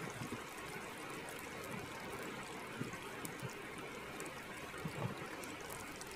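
Steady sizzle of an egg, potato and vegetable batter frying in hot ghee in a metal karahi, with a few light knocks as a slotted spoon and bowl scrape the batter into the pan.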